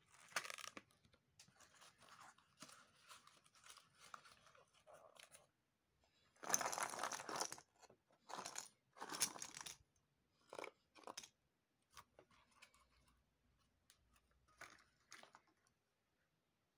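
Cardboard jigsaw puzzle pieces tipped out of their box onto a mat, rustling and clattering. The loudest pours come in three rushes about halfway through. Fainter rustling comes before them, and a few scattered clicks follow as the last pieces drop and settle.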